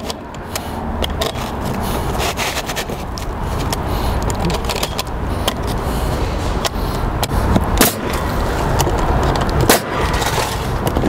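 RIDGID pneumatic coil roofing nailer driving nails into asphalt shingles: a series of sharp shots at irregular intervals, over a steady low noise.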